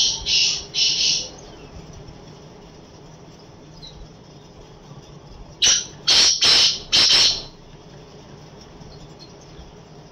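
Caged black francolin calling: three short notes at the very start, then a phrase of four notes about six seconds in.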